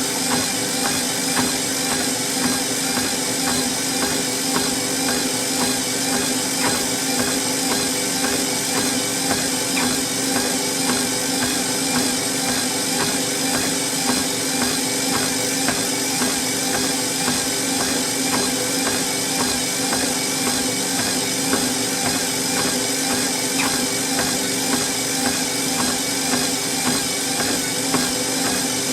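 Treadmill running, its motor and belt giving a steady hum, with a person walking on it whose footsteps land on the deck in an even, regular rhythm.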